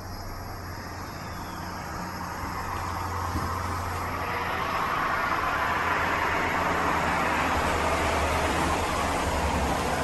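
Rushing noise of a passing vehicle that swells over the first few seconds and then holds steady, with a low hum underneath.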